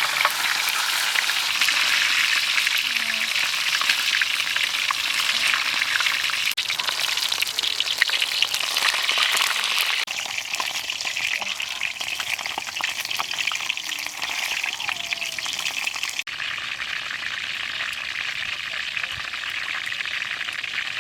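Chicken frying in hot oil: a steady sizzle dotted with small crackling pops. It changes abruptly and gets a little quieter at about ten seconds and again at about sixteen seconds.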